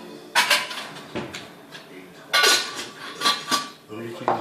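Plates and cutlery clattering as food is dished out: a series of sharp clinks and knocks, one near the middle ringing on briefly.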